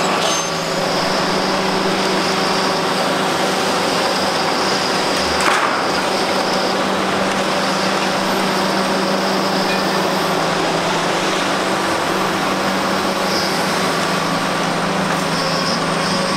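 Kobelco SK850 demolition excavators' diesel engines running steadily with hydraulics working, over the grinding noise of concrete demolition, with a thin high squeal that comes and goes. A single sharp knock about five and a half seconds in.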